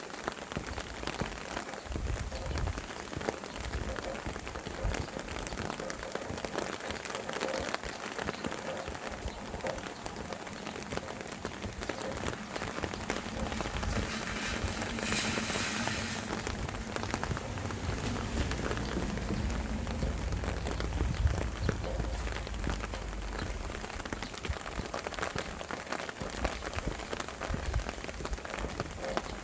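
Steady rain pattering on surfaces, a dense stream of individual drops, with a low wind rumble coming and going and a brief stronger hiss about halfway through.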